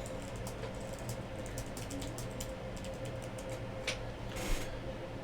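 Light, irregular clicks of typing on a computer keyboard over a faint steady hum.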